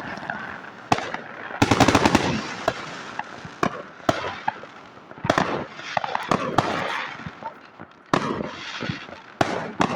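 New Year fireworks going off: a dense run of rapid cracking bangs about two seconds in, then scattered single sharp bangs over a constant crackling haze of many more distant fireworks.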